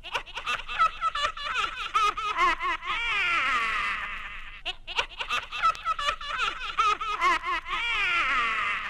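Spooky sound-effect laughter: a high, warbling, cackling laugh. The same phrase plays twice, with a brief break in the middle.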